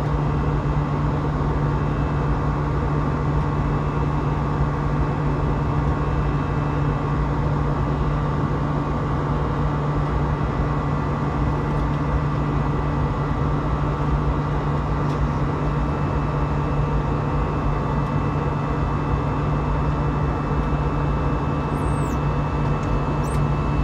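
Airbus A320 cabin noise in climb after takeoff, heard from a window seat by the wing: the jet engines and the airflow make a steady, even drone with a low hum and a few thin steady tones above it.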